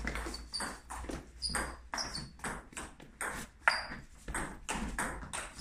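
Table tennis rally: the celluloid-type ball clicking off bats and table in a quick, even run of about four hits a second, some with a short high ping.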